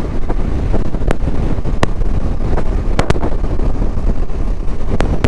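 Wind buffeting the microphone of a Bajaj Dominar 250 motorcycle under way, a steady low rumble, with a few brief sharp clicks at about 1, 2 and 3 seconds in.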